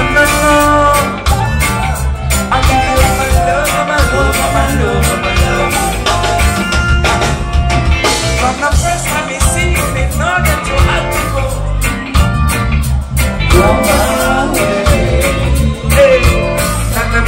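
Live reggae band playing loud, with a steady drum beat, heavy bass and guitar and keys, and a vocalist singing over it, heard from within the crowd.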